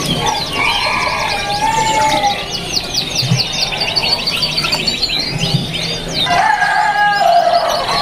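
Domestic canaries singing, several at once: fast runs of repeated high chirps over longer whistled notes, overlapping without a break.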